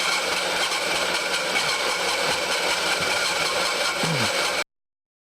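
Milling machine running steadily for a finishing cut on plates held in the vise, with a steady whine over the noise of the cut. It cuts off suddenly about four and a half seconds in.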